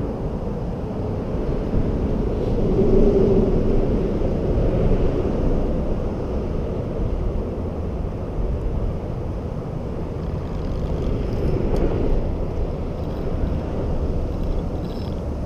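Low, steady rumble of road traffic on the bridge just overhead, swelling twice as vehicles pass.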